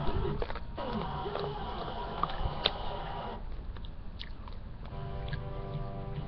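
Chewing on a Warheads hard sour candy close to the microphone, with a few sharp cracks in the first three seconds. Television sound plays behind it, with steady music from about five seconds in.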